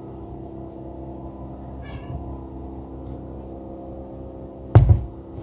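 A glass bottle of syrup put down hard on a kitchen worktop with one loud knock near the end, over a steady low hum. A short squeak is heard about two seconds in.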